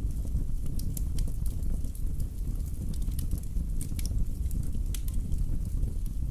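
Wood fire burning in a fireplace, with a steady low rumble and frequent small, sharp crackles and pops.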